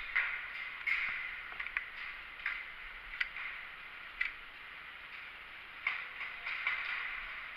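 A series of sharp clicks and knocks at irregular intervals, one or two a second, over a steady hiss.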